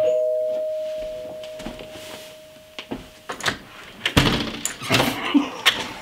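Doorbell chime: two notes struck together at the start, ringing and slowly fading over about three seconds. In the second half come a loud thump and a series of knocks and clicks as the front door's handle is worked.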